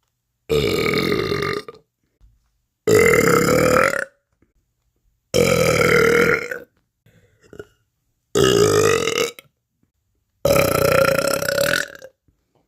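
A person burping five times, each a long drawn-out belch of a second or so, with silence between them.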